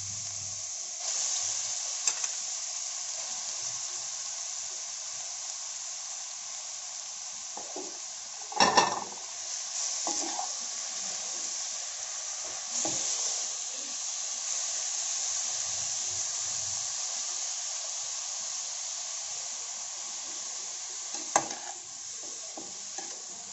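Grated bottle gourd frying in hot ghee in a metal kadhai: a steady sizzle, with a perforated steel ladle stirring and scraping through it and knocking against the pan now and then, loudest about nine seconds in and again near the end.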